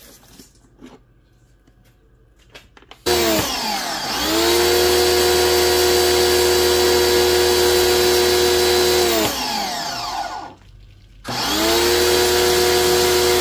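PowRyte 3800R electric pressure washer's motor and pump starting up about three seconds in with a rising whine, then running steadily under the hiss of its foam gun spraying soap. About six seconds later it winds down and stops, and after a short pause it starts again with the same rising whine and runs on.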